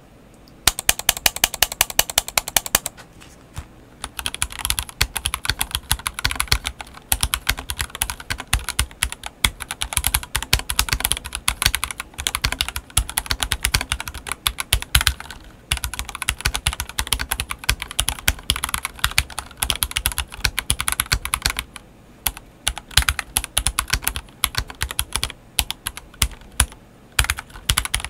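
Typing on a CSTC40 40% ortholinear mechanical keyboard fitted with Gateron Yellow linear switches and YMDK OEM-profile keycaps. A quick run of even keystrokes is followed by a short pause, then steady typing with one brief break about three quarters of the way through.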